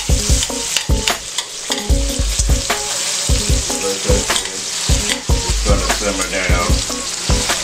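Sliced onions and mushrooms sizzling in hot vegetable oil in a skillet, with a steady frying hiss. Metal tongs click and scrape against the pan again and again as the vegetables are stirred.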